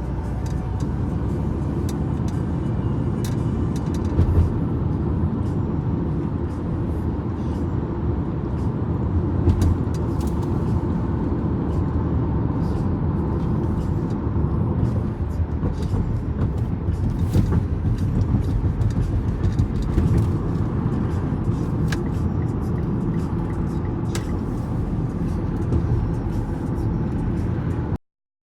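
Steady low rumble of a moving vehicle heard from inside, with scattered light clicks and knocks; it cuts off abruptly just before the end.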